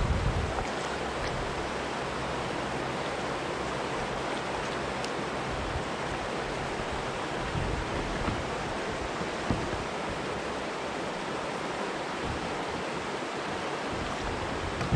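Steady rushing of a shallow river running over rocks and gravel, with a few faint knocks partway through.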